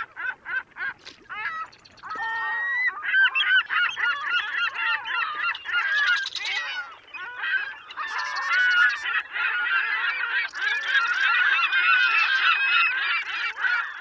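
A flock of birds calling over one another: a few separate calls at first, thickening about two seconds in into a dense, continuous chorus of overlapping calls.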